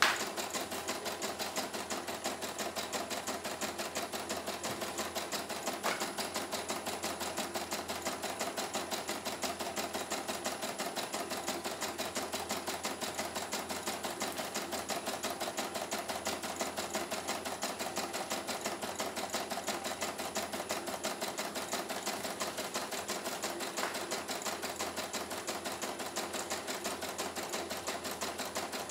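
CNY E900 computerised embroidery machine stitching out a design: a rapid, even ticking of needle strokes.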